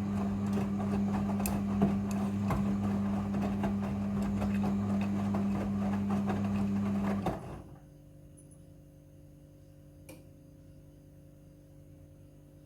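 Midea front-loading washing machine running during its rinse cycle: a steady hum with a rough, churning texture that cuts off about seven seconds in. A faint hum remains, with a single click a little later.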